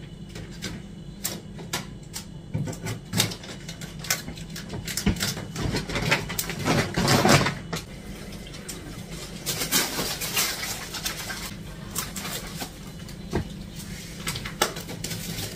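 Groceries being unpacked and put away: plastic bags and packets rustling, with scattered knocks and clatter of items being set down and handled, louder rustling twice in the middle. A steady low hum runs underneath.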